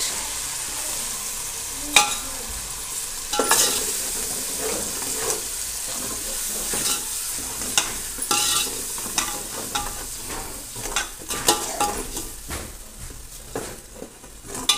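Tomato and onion paste frying in hot oil in a metal pot, sizzling steadily while a steel ladle stirs it, scraping and knocking against the pot at irregular moments.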